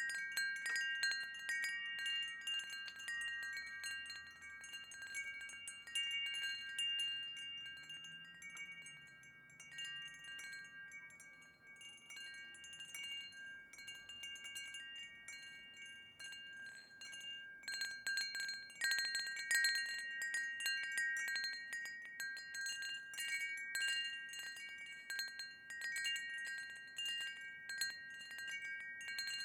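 Wind chimes ringing, several long-ringing high tones overlapping as the chimes are struck again and again. They go calmer for a while in the middle, then bursts of quick strikes come about eighteen to twenty seconds in.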